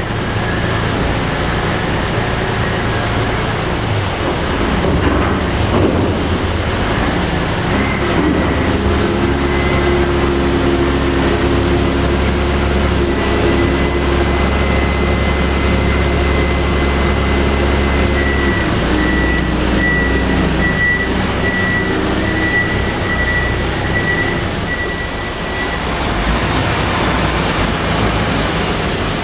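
Heavy diesel engine of a Konecranes reach stacker working close by, running at a steady pitch through the middle. A high warning beep pulses at a steady rate in the second half, and a short sharp air-brake hiss sounds near the end.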